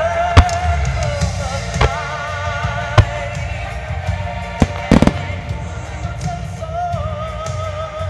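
Firework shells bursting overhead: about five sharp bangs in the first five seconds, the last few in quick succession, over music with a singing voice.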